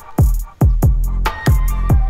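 Electronic background music with a heavy beat: deep drum hits that drop in pitch, several a second, over sharp hi-hat clicks.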